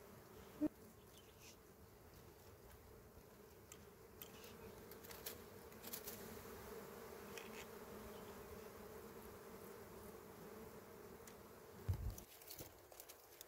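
Faint, steady buzzing of a cluster of dwarf honey bees on their exposed comb, swelling a little through the middle. There are a few light clicks and a short low thump near the end.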